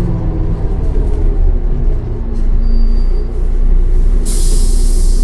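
MAN D0836 diesel engine and ZF automatic gearbox of a Solaris Urbino 10 II city bus running, the engine note falling at the start. A short high beep sounds about three seconds in, and a loud hiss of compressed air follows about a second later.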